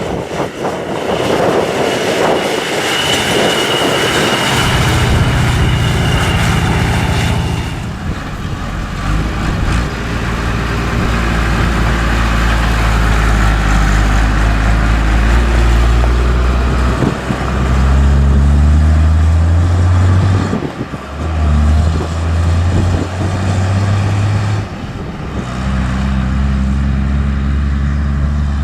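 Engine of hay-harvesting farm machinery running, its pitch stepping up and down several times under changing load. The first few seconds are a clattering, hissing mechanical noise with a high whine.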